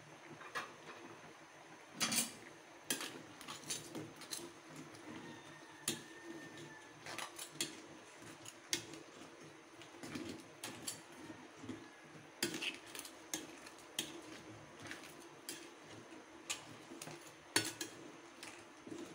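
Metal spatula knocking and scraping against a stainless steel pot while stirring crab and vegetables, in irregular clinks all through, the loudest about two seconds in and near the end.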